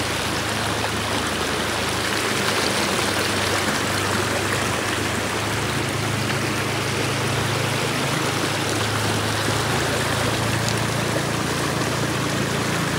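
Steady rushing of water, with a low steady hum underneath.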